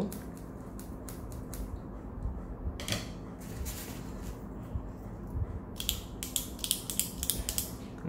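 Scattered light clicks and handling sounds, then a quick run of sharp clicks over the last two seconds or so.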